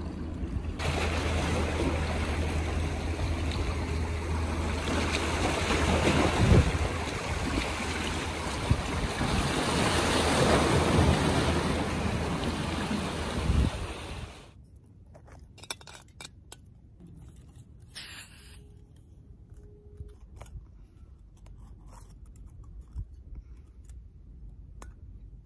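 Surf washing against jetty rocks with wind rumbling on the microphone, loud and steady, cutting off suddenly about 14 seconds in. After that it is quiet apart from scattered light clicks and taps as a backpacking stove is handled on its gas canister.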